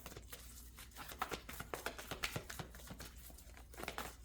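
Tarot cards being handled, a run of soft, irregular flicks and taps.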